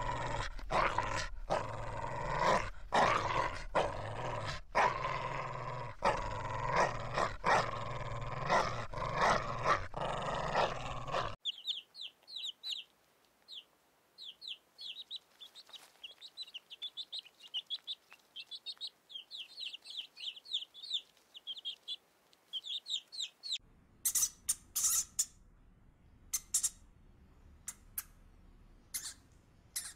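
A dog vocalizing in a loud, pulsing run of sounds for about the first eleven seconds. It gives way to many rapid, high peeps of chicks with a hen, and about two-thirds of the way through to sharp, high squeaks of guinea pigs.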